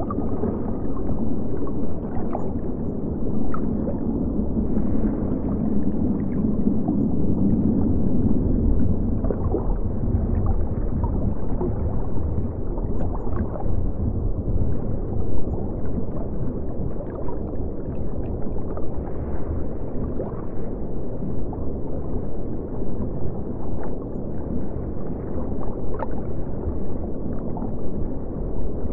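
Steady, muffled underwater water sound, gurgling throughout with scattered small pops like bubbles.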